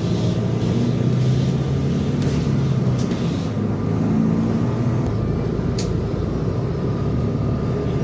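City bus engine running as the bus drives, heard from inside the cabin: a steady low drone that shifts slightly in pitch, with a faint thin whine. A couple of sharp clicks come about five and six seconds in.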